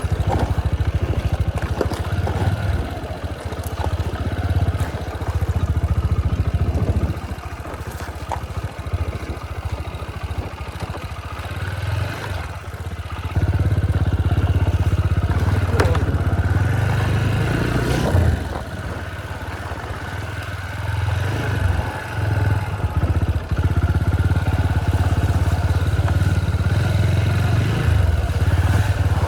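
Motorcycle engine running while riding, with wind noise on the microphone. The engine gets louder and steadier about halfway through.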